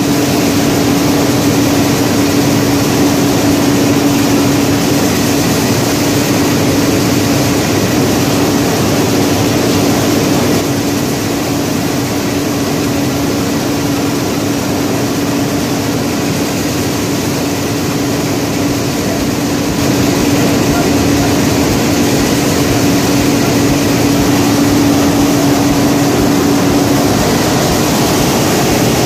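A heavy engine running steadily: a constant hum over a broad rushing noise, a little quieter for a stretch in the middle, with the hum dropping away near the end.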